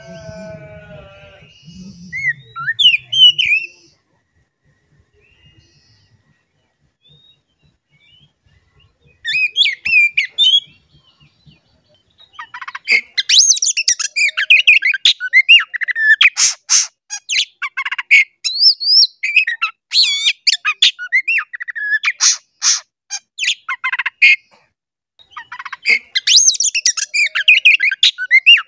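Oriental magpie-robin singing a loud, varied song of quick whistled phrases mixed with harsh rasping notes. After a few scattered notes and a short phrase about nine seconds in, the song runs almost without a break from about halfway through, pausing briefly near the end.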